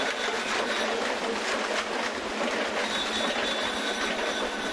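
Fishing trawler's trawl winch running as the net is hauled, a loud, steady mechanical din with a thin high whine over a clattering rumble.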